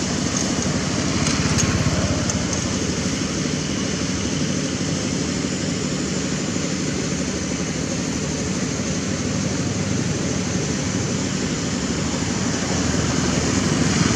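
Steady rumble of motorbike road traffic, swelling briefly about two seconds in and again near the end.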